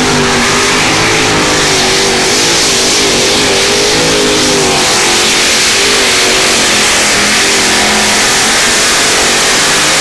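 Supercharged engine of a 950 kg Modified-class pulling tractor running flat out under load as it drags the weight sled. Loud and continuous, the pitch wavering slightly throughout.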